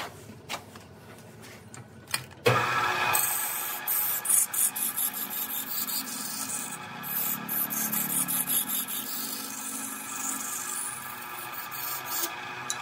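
Wood lathe turning a wooden vase while the spinning piece is worked with a tool or abrasive: a steady rubbing, scraping noise with a hiss starts about two and a half seconds in and stops shortly before the end. Before it there are only a few light clicks.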